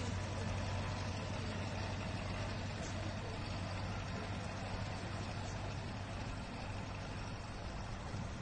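Wheeled front-loader tractor's engine running steadily as a low drone, slowly fading as the tractor drives away through floodwater.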